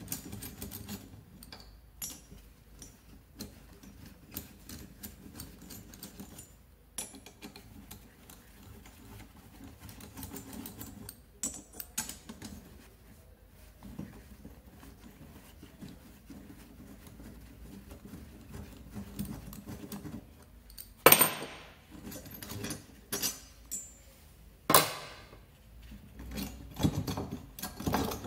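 Metal hand tools clicking and clinking against a scooter's two-stroke engine as the cylinder head is worked loose with a socket wrench, with several sharper metallic knocks in the last third.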